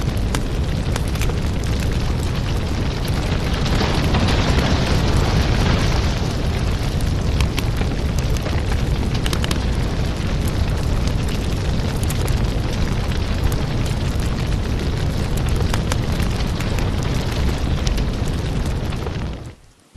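Wood fire burning: a steady low rumble with frequent sharp crackles and pops, and a stronger hiss about four seconds in. The sound dips briefly to near silence just before the end and comes straight back.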